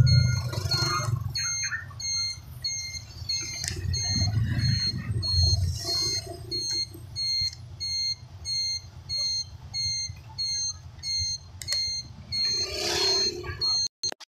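Electronic beeping alert, a short high tone repeating about twice a second, over a low engine and road rumble that fades out about halfway through.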